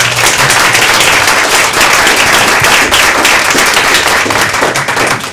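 Audience applauding, a dense round of clapping that begins all at once and dies away near the end.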